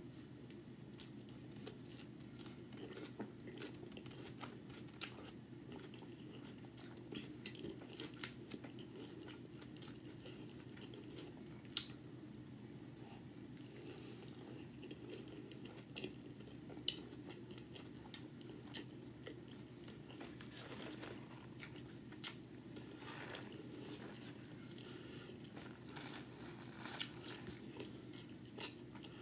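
A person biting into and chewing tortilla taco boats: faint, irregular wet mouth clicks and smacks over a steady low hum.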